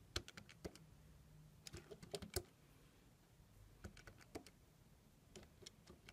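Faint, irregular clicks of keys being pressed on a Casio fx-82MS scientific calculator, in short quick clusters as numbers are keyed in.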